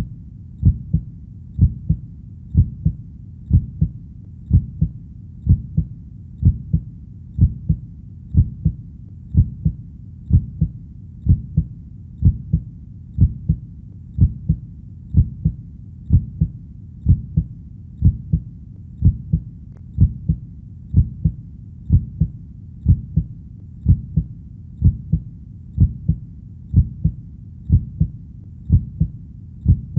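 Heartbeat, a steady lub-dub a little under once a second, deep and low-pitched.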